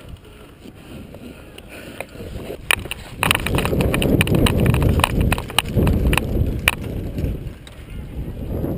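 Quick footsteps and rattling gear as an airsoft player moves, mixed with a string of sharp clicks, loudest from about three seconds in.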